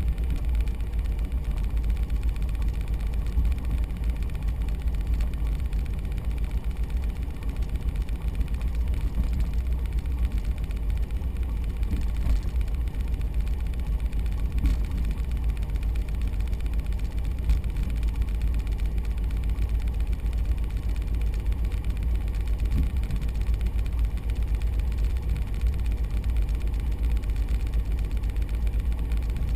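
Small plane's piston engine running steadily, with a strong low rumble.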